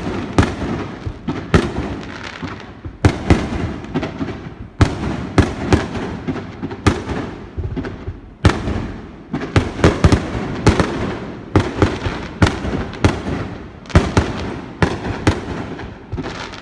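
Aerial fireworks bursting in a dense volley: sharp booms come one after another, often less than a second apart and sometimes in quick pairs, each trailing off in a rumbling echo.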